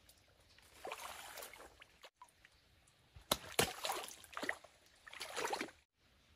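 Water sloshing and splashing in a shallow muddy stream as someone wades and stirs through it: a short run of splashes about a second in, then a longer run of louder splashes from about three seconds in that cuts off suddenly near the end.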